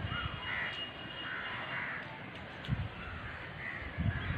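Crows cawing repeatedly in short calls, with a few low thumps in between.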